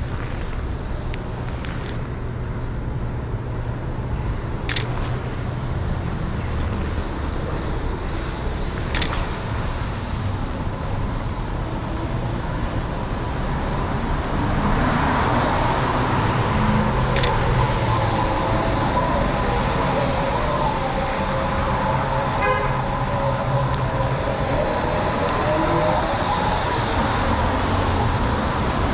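Steady downtown street traffic, growing louder about halfway through as a vehicle's engine hum comes close. Over it, three single shutter clicks from a Sony A7R2 camera, several seconds apart.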